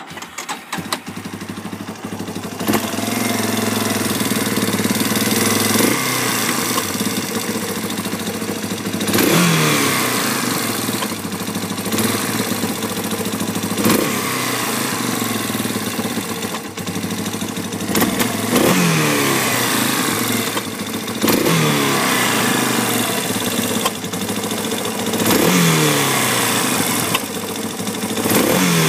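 Yamaha Warrior 350 ATV's single-cylinder four-stroke engine starting, then idling with about eight quick throttle blips, each falling back to idle, with popping through the revs. The owner takes the popping for a backfire in the intake boot after any throttle.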